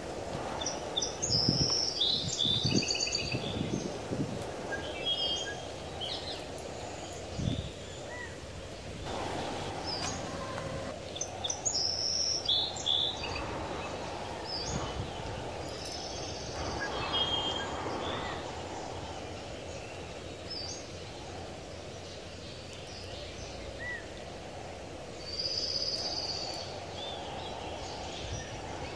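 Small birds chirping in short repeated calls, in scattered clusters, over a steady low hiss of outdoor background noise. A few soft knocks come in the first few seconds.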